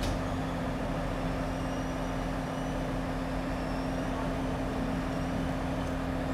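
Diesel engine of a crane truck running steadily, powering the truck-mounted hydraulic knuckle-boom crane, with a constant low hum.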